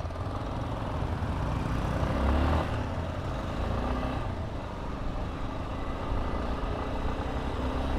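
Road traffic: vehicle engines running steadily, with an engine note rising about two seconds in.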